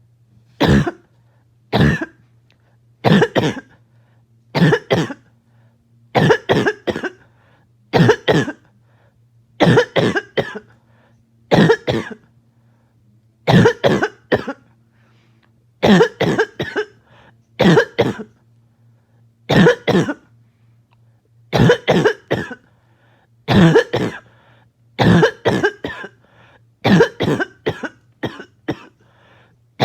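A person's harsh, barking, choking cough, coming in repeated fits: a single cough or a quick double or triple cough about every two seconds. The coughing is set off by an itchy nose and throat.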